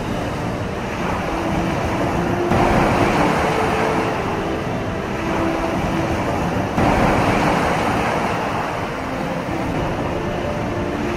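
Steady, loud rushing noise with faint low hum-like tones in it, jumping in level abruptly twice.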